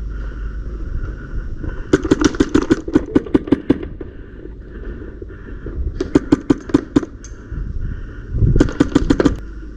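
Airsoft rifle with a PolarStar compressed-air (HPA) engine firing three full-auto bursts of rapid, evenly spaced shots, the first and longest about two seconds in.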